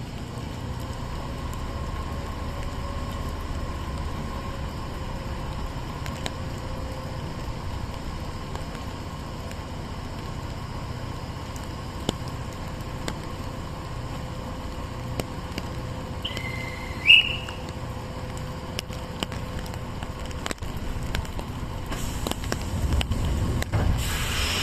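Toyama Chiho Railway electric train running: a steady low rumble with a faint steady whine. About 17 seconds in there is one short, sharp high note that rises slightly, and the noise swells over the last few seconds.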